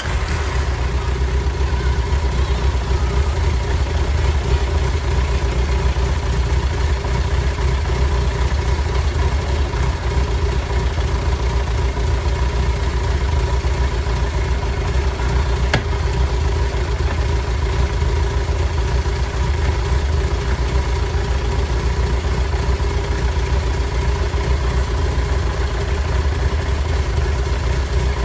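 Kawasaki Zephyr 1100's air-cooled inline-four engine idling steadily.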